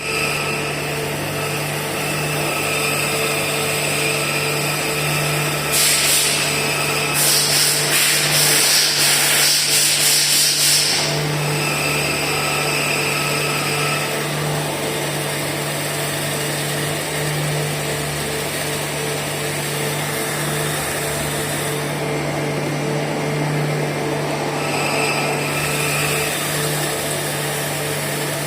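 CNC lathe running steadily while turning a nylon bushing, with a constant motor hum and a higher steady tone. About six seconds in, a loud hissing, rapidly pulsing burst lasts about five seconds before the steady running resumes.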